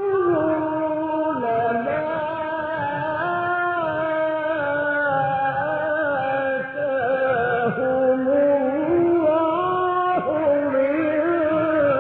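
A male Quran reciter chanting in the melodic mujawwad style, holding one long ornamented vocal line without a breath, the pitch stepping and turning up and down.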